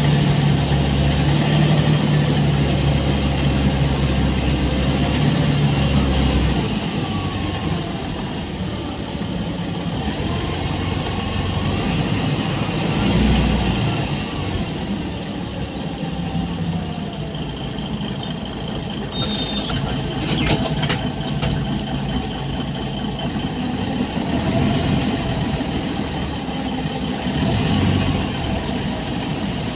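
Mercedes-Benz O405N2 city bus heard from inside the passenger cabin while under way: a low engine drone, strong for the first six seconds or so and then easing into quieter running and road noise. About nineteen seconds in, a sudden short hiss of air.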